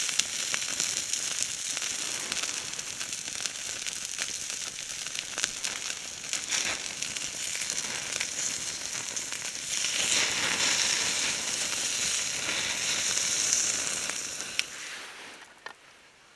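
Food sizzling and spitting in a hot pan: a steady frying hiss with fine crackles that grows louder about ten seconds in, then fades away near the end.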